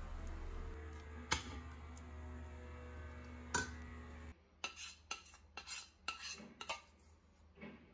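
Metal spoon stirring melted peanut butter in a stainless steel saucepan, with an occasional clink of spoon on pan, over a steady low hum. About four seconds in the hum stops and the spoon scrapes the peanut butter out of the saucepan into a steel bowl in a quick run of short scrapes and taps.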